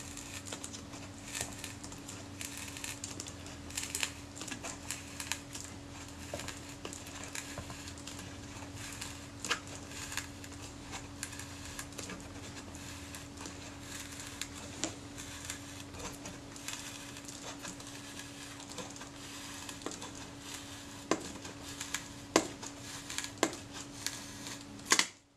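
Leather covering being picked and peeled off a Kodak Retina IIa's aluminium back door with the fingers and fingernails: faint scratching and crackling with scattered small clicks, over a steady low hum. It all cuts off suddenly near the end.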